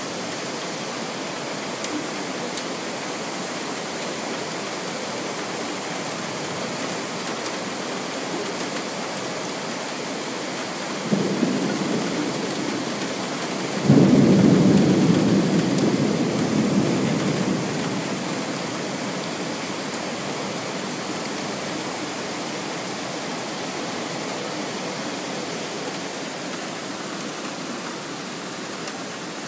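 Steady rain falling throughout, with a sudden thunderclap about eleven seconds in and a louder crack of thunder a few seconds later that rumbles on for about four seconds before fading back into the rain.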